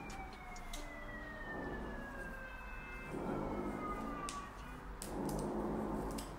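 A distant siren's long wail sliding slowly down in pitch over several seconds, with a few light clicks over it.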